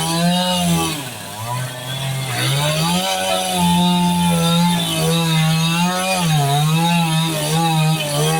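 Chainsaw engine running hard while cutting through a palm trunk, its pitch sagging as the chain bogs into the wood and climbing back, several times. The chain's rakers (depth gauges) have been lowered a lot, so it bites deep and cuts fast.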